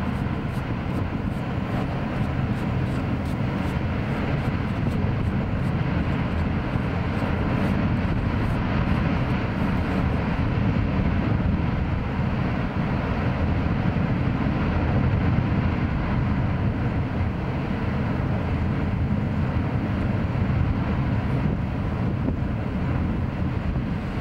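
Gas and steam venting from Mount Bromo's crater in a thick white plume, a steady deep rushing noise that holds without a break.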